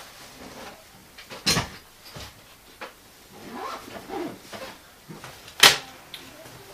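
Two sharp clicks or knocks about four seconds apart, the second the loudest, with lighter taps between them and a brief wavering, pitched sound near the middle.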